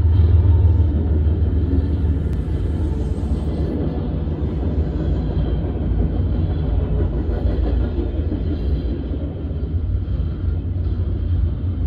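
Freight train passing at speed: a steady rumble of steel wheels on rail as hopper cars and double-stack container cars roll by.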